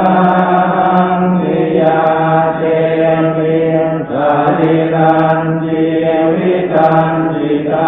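Thai Buddhist evening chanting (tham wat yen) in Pali: voices reciting on a nearly steady, monotone pitch, with brief breaks between phrases every second or two.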